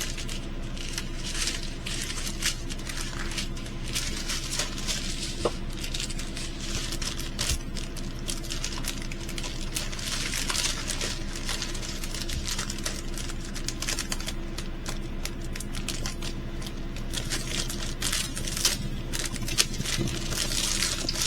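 Plastic packaging and small bags of diamond-painting drills being handled: irregular crinkling and rustling with many small clicks and taps, over a steady low hum.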